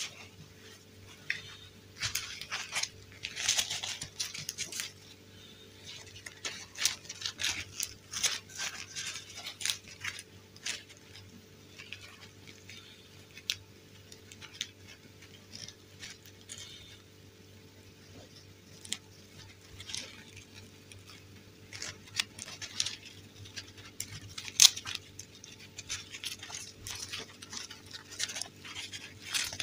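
Hands handling plastic fashion dolls and their fabric dresses: irregular rustling and small clicks and taps. A single sharper click comes near the end. A faint steady low hum runs underneath.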